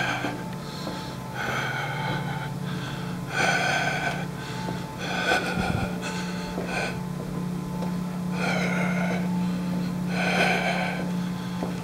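A person breathing hard in loud, rasping gasps, about one breath every one and a half to two seconds, over a steady low hum.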